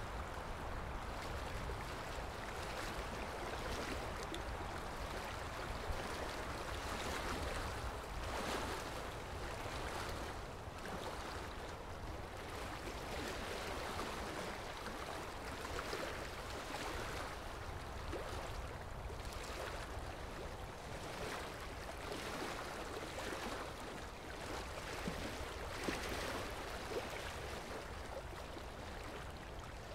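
Steady rushing of running water, swelling and easing gently every second or two.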